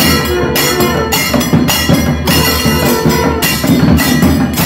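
A South Indian nadaswaram and thavil temple ensemble playing: nadaswaram double-reed pipes hold a sustained melody over rhythmic thavil barrel-drum strokes.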